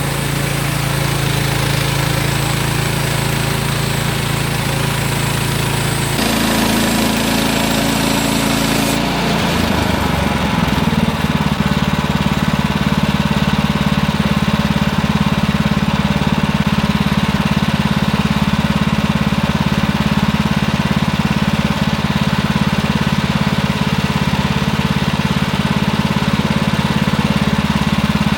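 Small gasoline engine of a Woodland Mills portable bandsaw mill running steadily. Its note changes about six seconds in and again around ten seconds in, then holds a slightly louder, steady drone.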